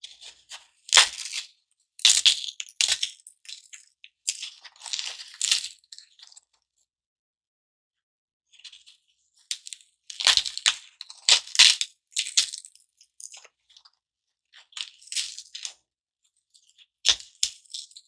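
Garden foam block being cut into pieces: short, staticky rasping strokes in separate bursts, with a pause of about two seconds in the middle.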